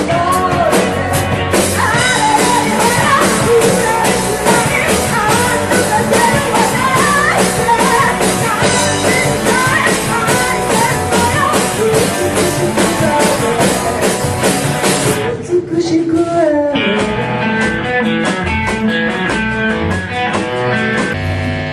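Live rock band music with singing, guitar and drums. About three-quarters of the way through it cuts abruptly to a different piece.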